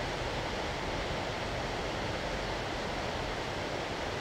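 River rapids: whitewater rushing steadily over rocks.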